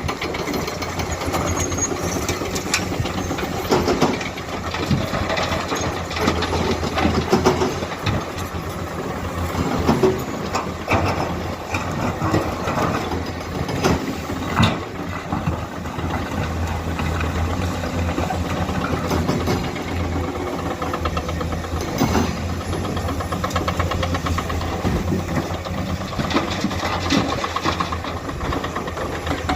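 Komatsu hydraulic excavator's diesel engine running steadily, with scattered knocks and clanks from the machine at work.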